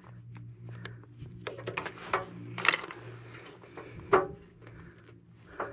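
Hands working with vinyl electrical tape and a plastic block heater plug connection: a scattered run of light clicks, taps and rubs, over a steady low hum.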